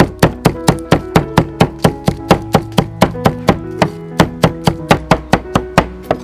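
Steel cleaver chopping rapidly on a wooden chopping board, mincing garlic: a fast, even run of sharp knocks at about five strokes a second, over background music.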